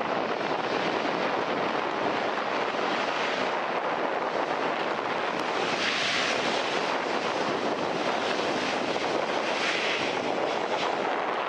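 Jet engines of a Southwest Airlines Boeing 737 rolling down the runway just after landing: a steady rushing engine noise that swells slightly a couple of times.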